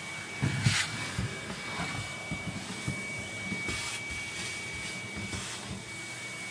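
Shop vacuum running steadily with a high whine, its hose drawing loose scraped flakes and dirt out of a wooden boat's hull, with a few brief rattles and knocks as debris is sucked up and the nozzle works along the wood.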